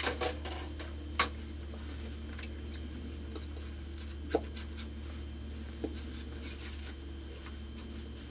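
A painting tool clinking and tapping against a handheld paint palette while acrylic paint is mixed: a few sharp light clinks, the loudest about a second in, over a steady low hum.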